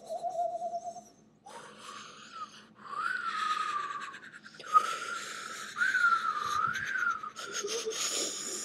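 A person whistling single wavering notes that slide up and down, breathy, with a short lower note at the start and a few brief breaks between longer higher ones.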